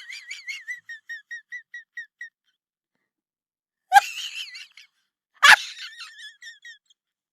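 High, wavering squeal-like sound effect repeated by a fading echo at about five notes a second. It dies away, then starts again about four seconds in and once more a second and a half later, each time trailing off in echoes.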